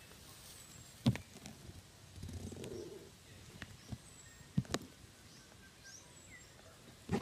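Birds chirping faintly in short high calls, with a few sharp knocks about a second in and twice around four and a half seconds.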